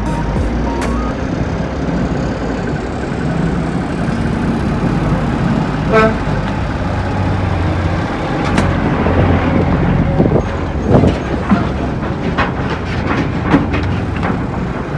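Diesel engine of a Peterbilt dump truck running as the truck drives slowly past, with a brief pitched tone about six seconds in and several knocks and rattles in its second half.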